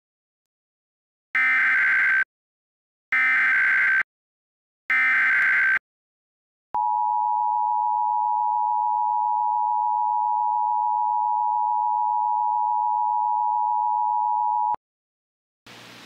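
Emergency Alert System tones: three short buzzy digital header blasts (the SAME data code for a dust storm warning), each just under a second long and about a second apart, followed by the EAS two-tone attention signal, a steady dual tone held for about eight seconds.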